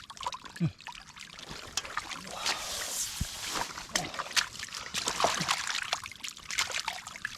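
Shallow muddy canal water being splashed and stirred by hand, with many small wet clicks and a longer pouring splash about three seconds in.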